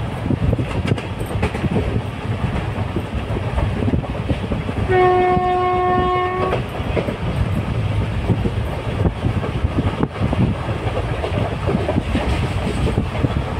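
Train running on rails, a steady rumble with wheels clattering over rail joints. About halfway through, a single steady horn blast lasts about a second and a half.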